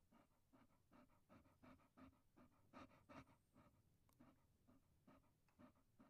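Faint dog panting: quick, even breaths, about three or four a second.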